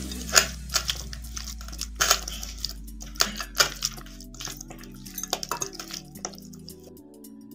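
A hand squishing and turning raw, spice-coated chicken wings in a bowl: irregular wet squelches and slaps, which thin out near the end. Soft background music plays under them.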